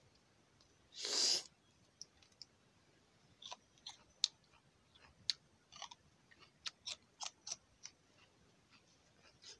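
A fresh green wild plant stem being stripped and eaten by hand: one short tearing rip about a second in, then a run of small crisp snaps and crunches as the stem is broken and bitten.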